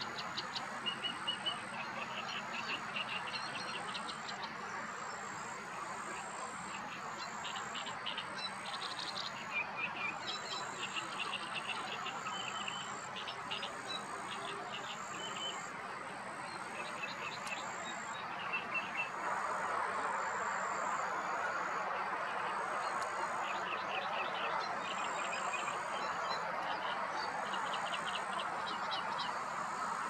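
Background birdsong: several small birds singing rapid trilled phrases, with a thin high note repeated about once a second. Under it runs a steady rushing hiss that grows louder a little past the middle.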